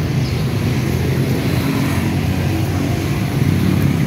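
A steady low hum with no breaks or distinct strokes.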